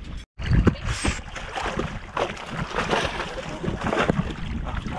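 Wind rumbling on an action camera's microphone aboard a boat, with scattered knocks and water sounds; the audio cuts out briefly near the start at an edit.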